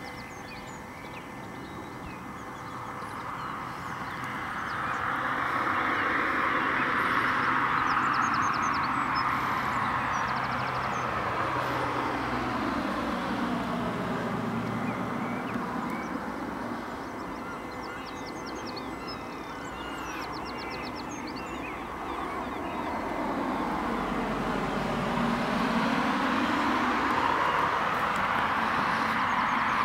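Steady distant rushing noise, most likely from an engine or traffic, whose hollow pitch slides slowly down and then back up, with faint bird chirps above it.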